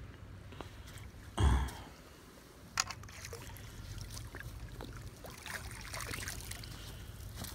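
A carp being landed in a landing net: a loud splash about a second and a half in, a sharp knock soon after, then water trickling and rustling as the netted fish comes out of the water.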